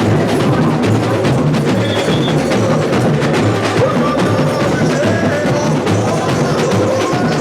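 Samba school drum section (bateria) playing a loud, steady, dense samba rhythm, many drums and small percussion together.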